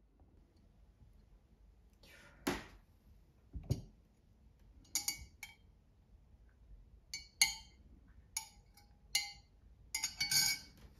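Metal teaspoon stirring tea in a glass mug, clinking against the glass again and again in the second half, each clink ringing briefly. Two duller knocks come earlier.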